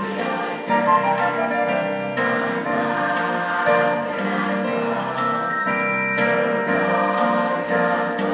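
A mixed teenage choir singing in harmony, holding long notes.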